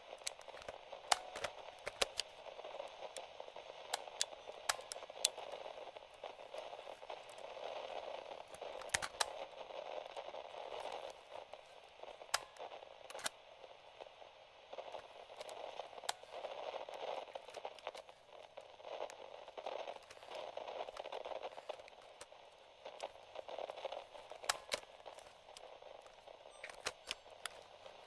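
Light radio static from a vintage portable radio: a soft hiss that swells and fades every few seconds, with scattered sharp crackles and pops.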